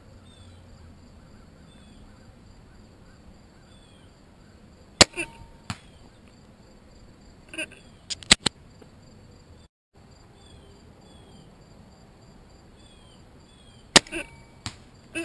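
Compound crossbow firing twice, about 5 s and 14 s in: each shot is a sharp, loud crack of the string release followed by a brief ringing twang of the string and limbs. A few smaller clicks and knocks come between and after the shots.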